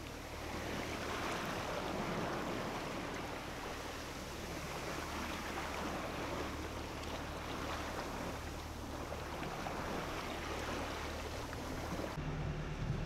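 Water rushing and splashing along the hull of a small tugboat under way, in slow swells, over the steady low hum of its engine. About a second before the end the rush of water falls away and a louder, deeper engine drone takes over.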